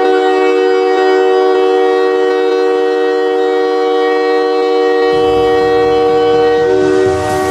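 Montreal Canadiens goal horn blowing one long, loud, steady chord of several tones together. About five seconds in, a low rumbling noise joins under it.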